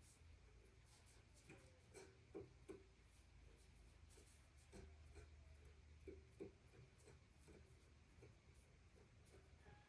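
Near silence, with faint scattered light taps and scratches.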